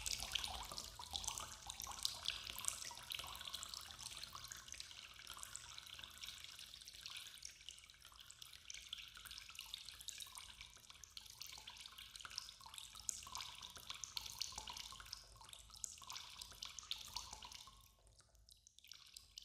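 Water dripping and trickling: a dense patter of small drops that fades down near the end.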